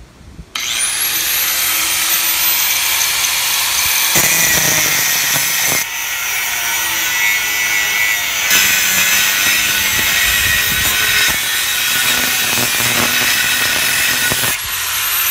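Hercules 4-1/2 in. 7 amp angle grinder fitted with a thin metal cut-off disc, switched on about half a second in with its motor whine climbing quickly to speed, then cutting steadily through a steel fence post pipe with a harsh grinding hiss. Near the end the whine climbs again as the disc eases off the cut.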